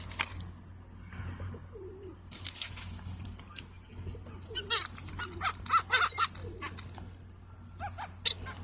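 Birds calling, with a flurry of short, sharp chirps about halfway through.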